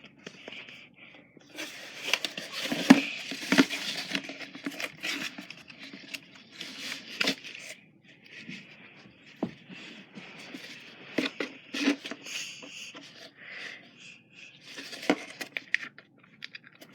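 Hands rummaging inside a box and handling a sunscreen bottle: irregular rustling, scratching and crinkling with scattered small knocks and clicks.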